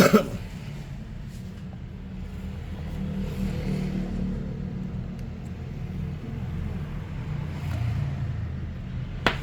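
A steady low rumble of background noise, with a sharp click right at the start and another near the end.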